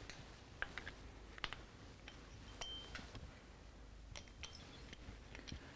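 Faint, scattered light metallic clicks and clinks, one with a brief ringing note, from the chrome telescoping pushrod tubes of a Harley-Davidson Twin Cam engine being handled and extended by hand.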